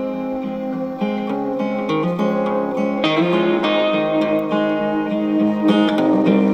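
Guitar music playing through a small PCL82 single-tube amplifier's built-in speaker, getting gradually louder as the volume knob is turned up.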